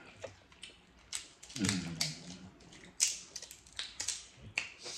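Shellfish shells being cracked and snapped open by hand, several separate sharp cracks and clicks, with a short hummed voice sound about one and a half seconds in.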